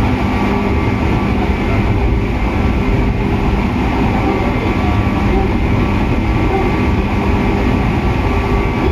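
103 series electric train running at a steady speed: its MT55A traction motors whine at an unchanging pitch over the low rumble of the wheels on the rails.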